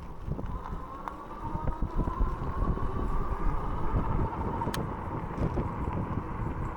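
Electric motor of a Tamobyke e-bike whining under way, its pitch slowly rising as the bike gathers speed, then dipping and rising again near the end, with wind rumbling on the microphone.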